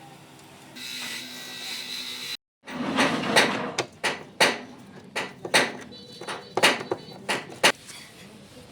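A brief steady whirring, then a run of about a dozen sharp knocks at uneven spacing, like tools striking during work on a vehicle.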